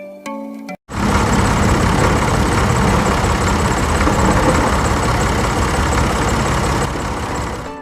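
A bell-like music tune is cut off just under a second in. After a short gap, a steady engine running sound follows for about seven seconds and eases off slightly near the end.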